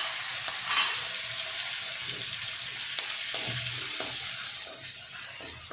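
Curry leaves and ajwain leaves sizzling steadily in hot oil in a kadhai as a tempering of fenugreek seeds, cumin and asafoetida. In the second half a metal spoon stirs and scrapes them in the pan.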